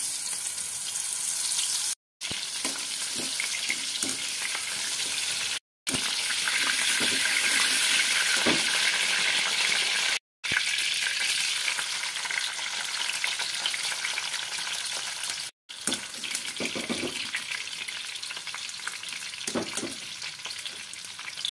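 Mushrooms and onions sizzling in hot oil in a steel kadhai: a steady frying hiss, broken four times by a brief sudden silence.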